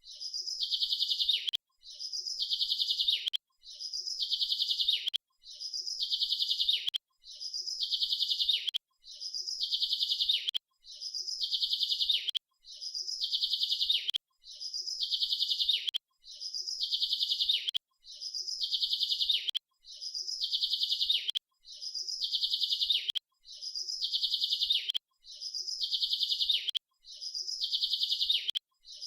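A bird's rapid high-pitched chirping trill, each burst about a second and a half long and ending in a downward slur. The bursts repeat identically about every two seconds with short silent gaps, like a looped recording.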